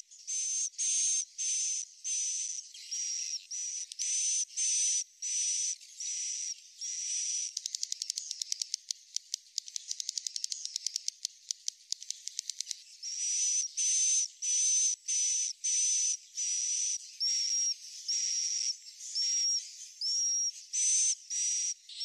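Swiftlet calls: short, high, buzzy chirps repeating about twice a second, with a fast run of clicks in the middle. This is the kind of call sound played through tweeters to lure swiftlets to nest.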